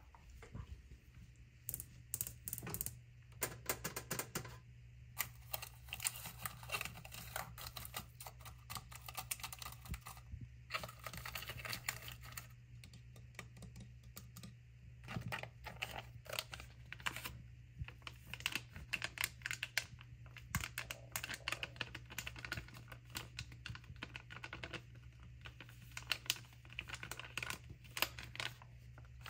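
Long fingernails tapping and scratching quickly on hard surfaces: a black plastic box and caddy, the creamer cups in it, and a foil coffee packet. The result is a dense patter of clicks with a few short pauses, over a steady low hum.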